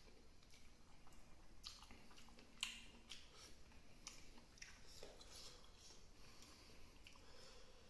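Faint chewing and mouth sounds of a person eating rice by hand, with scattered small wet clicks and one sharper click about two and a half seconds in.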